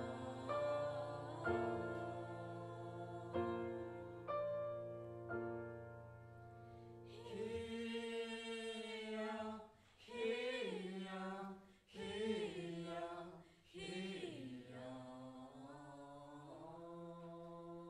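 Background music: held keyboard-like notes struck one after another over a steady low drone, then about halfway through a singing voice joins, chanting in long sliding, wavering notes over a held tone.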